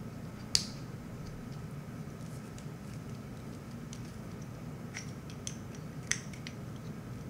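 Small metal clicks and taps of male XLR connector parts being handled and fitted together: one sharp click about half a second in, then scattered lighter clicks, several close together around five to six seconds in, over a faint steady hum.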